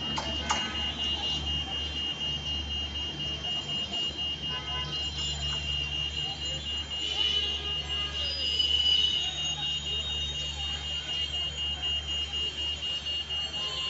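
Level-crossing warning alarm beeping continuously in a high tone, over the low rumble of a passenger train's last coaches rolling slowly past. The noise swells for a couple of seconds near the middle.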